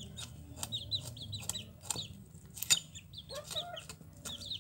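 Chickens clucking, mixed with sharp, scattered clicks and scrapes as a snakehead fish is scaled against a bonti's curved blade.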